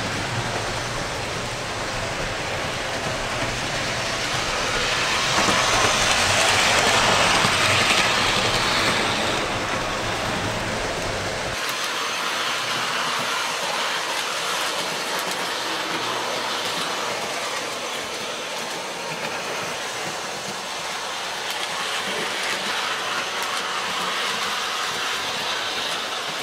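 O-scale model train running on three-rail track: a steady rolling rumble that swells as it passes close, about five to nine seconds in, then falls back. Partway through, the low rumble cuts out suddenly and a lighter, higher rolling noise carries on.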